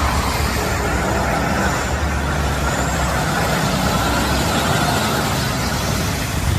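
Truck engine running steadily, with a constant low rumble under a noisy wash, as of a tanker truck on the move.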